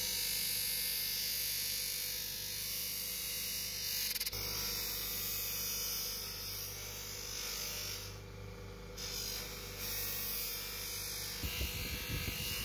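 Electric bench grinder running steadily with a buffing wheel, humming, while metal plier handles are pressed against the spinning wheel and polished with a steady hiss.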